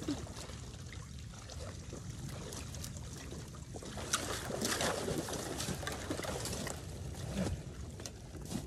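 Shallow water sloshing and splashing as a wild boar carcass is dragged through it by a man wading in rubber waders, with scattered sharp splashes and clicks, busiest about halfway through.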